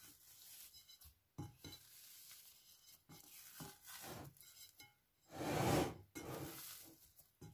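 Hands punching down and folding risen, yeasted bread dough in a glass bowl: soft squishing and rubbing, with a few light knocks against the glass. The loudest stretch, a noisy rush of handling, comes a little past the middle.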